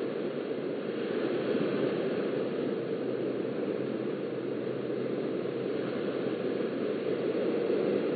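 Surf breaking and washing on a sandy beach, a steady rushing noise with small surges, muffled through a beach webcam's low-quality microphone.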